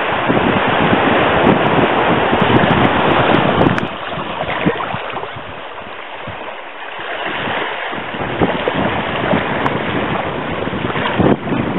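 Wind buffeting the microphone in gusts, a rough, rushing noise that eases for a few seconds about four seconds in and then picks up again.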